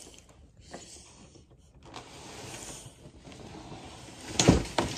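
Low rustling, like something being handled, then a single sharp thump about four and a half seconds in, followed by a small click.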